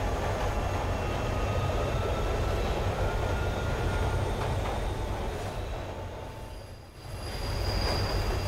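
Subway train running: a steady rumble with thin, high wheel squeals over it. The noise fades away briefly near the end and then comes back.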